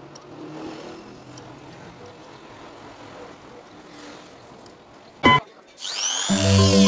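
Faint, steady background noise for about five seconds, then a brief loud electronic tone. A sweeping whoosh follows, leading into electronic background music near the end.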